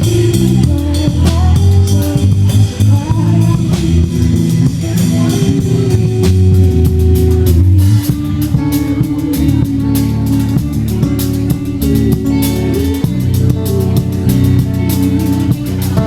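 Live band playing a pop song cover, with guitar, bass and a drum kit keeping a steady beat.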